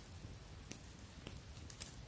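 Small wood campfire crackling faintly, with a few sharp pops about half a second apart.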